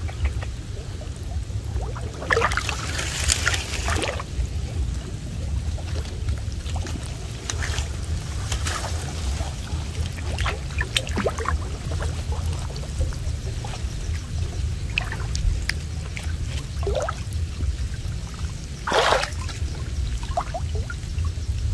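Water splashing and streaming off a wet cast net as it is lifted from a river and gathered by hand, over a steady low rumble. Louder splashes come about two to four seconds in, around nine seconds, and again near the end.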